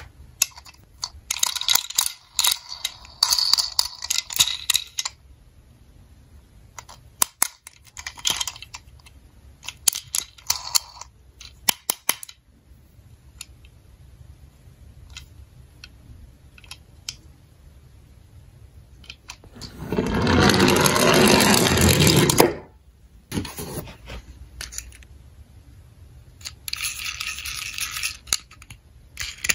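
Toy vehicles being handled in and around a cardboard box: scattered clicks and light clattering of small plastic and die-cast toys. About twenty seconds in there is a louder rough scraping rustle lasting about two seconds, and a softer one near the end.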